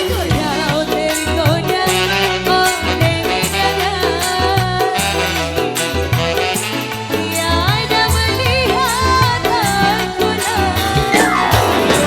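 Indonesian band music: a woman sings long, wavering notes over a steady drum beat and full instrumental backing.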